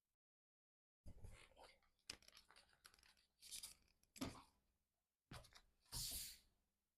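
Faint paper handling: rustling and crinkling of an album's photobook pages and paper inclusions in short irregular bursts, with a louder rustle about six seconds in.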